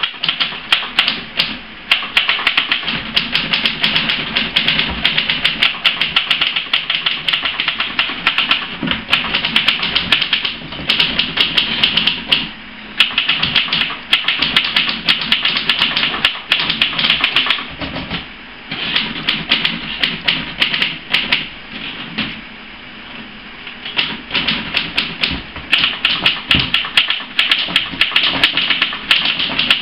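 Several manual portable typewriters being typed on at once: a dense, fast clatter of overlapping keystrokes, with a few brief lulls.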